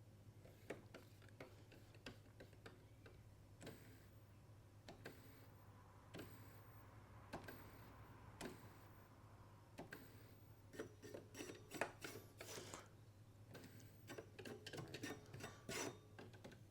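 Faint clicking and short whirs from the motorised faders of a Midas M32 mixing console moving along their tracks, freshly cleaned and working again, with the clicks coming thicker in the second half over a low steady hum.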